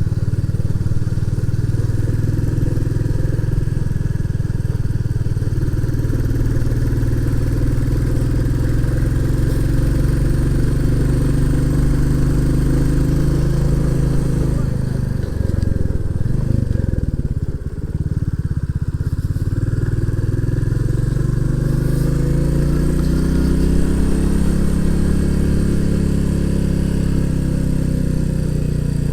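Royal Enfield Classic 350's single-cylinder engine pulling up a hill. Around halfway through the revs drop, then climb steadily again over several seconds.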